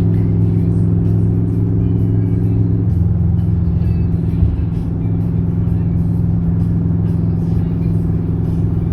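Steady road and engine drone inside a car cruising on the freeway, with music playing over it. A brief tick comes about four and a half seconds in.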